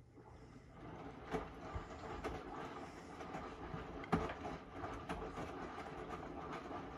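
Hotpoint integrated washing machine drum starting to turn on the first rinse of a 90° whites cycle, building up over the first second. Wet laundry tumbles in the drum with irregular thuds, the loudest about four seconds in.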